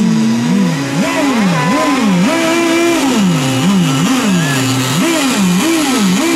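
Engines of several radio-controlled racing boats running together. Their pitches rise and fall over and over as the boats throttle up and ease off, while one holds a steady note for a few seconds at a time.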